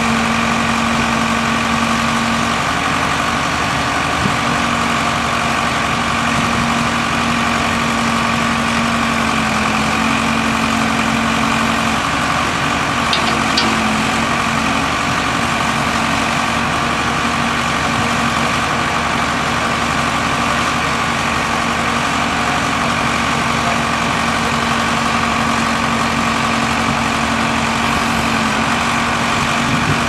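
Case 4T-390 3.9-litre four-cylinder turbo diesel of a 1996 Case 590 Super L backhoe idling steadily.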